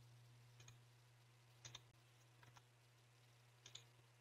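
Near silence with a low steady hum, broken by a few faint computer-mouse clicks, two pairs of them about one and a half and three and a half seconds in.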